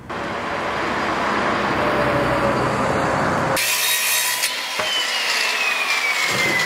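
Black & Decker circular saw cutting through a wooden board. About halfway through the sound changes abruptly, and a whine falls steadily in pitch from there on.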